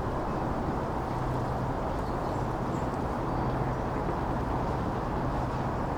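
Steady autumn wind blended with the hum of distant road traffic, with a low, even drone running underneath.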